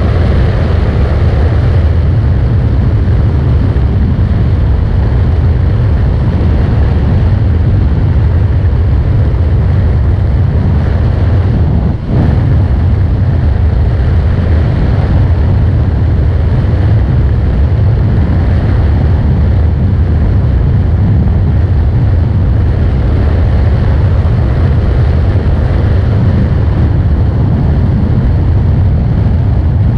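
Honda VFR800F sport-tourer's V4 running at a steady freeway cruise of around 180 km/h, buried in heavy wind rush over the microphone. There is a brief dip in level about 12 seconds in.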